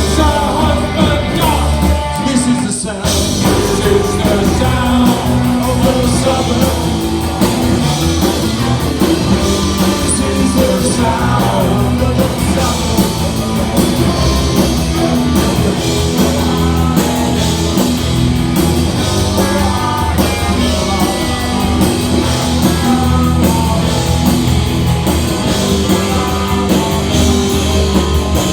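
Punk rock band playing live, with electric guitars, bass, drums and a singer, loud and continuous apart from a brief drop about three seconds in.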